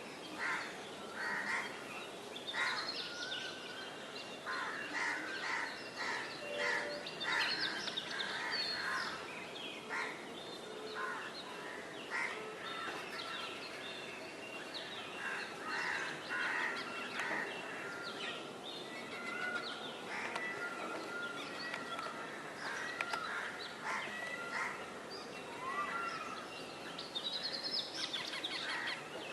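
Parrots calling with many short squawks in quick, irregular succession, a few of them sliding upward near the end.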